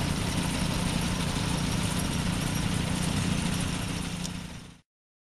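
An engine running steadily, fading out near the end.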